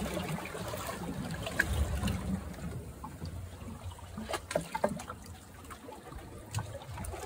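Water trickling and dribbling over a low rumble, with a few small, sharp wet clicks about four and a half seconds in and again near the end.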